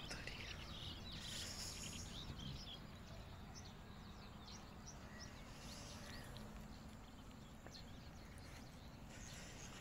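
Faint outdoor background: small birds chirping in scattered short calls over a low, steady rumble.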